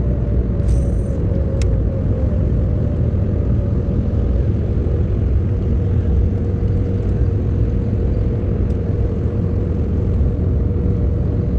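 Small boat's outboard motor running steadily under way, a constant rumble with a steady hum. A couple of brief ticks sound about a second in.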